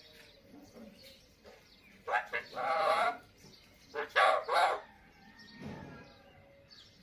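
Talking Alexandrine parakeet (raw tota) uttering two short phrases in its harsh, speech-like voice, the first about two seconds in and a shorter one about four seconds in.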